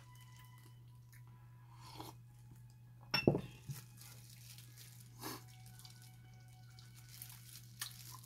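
Eating by hand in plastic food gloves: quiet chewing and glove rustling, with one sharp knock that rings briefly about three seconds in, like dishware struck, and a few smaller clicks.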